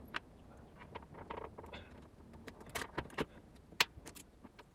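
Scattered small clicks, taps and light scrapes of hand tools and small parts as the heat spreaders are worked off an HTC Wildfire S's circuit board.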